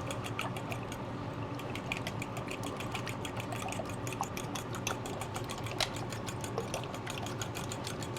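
A bowl of raw eggs being beaten by hand, the utensil tapping quickly against the bowl at about eight strokes a second in a steady rhythm.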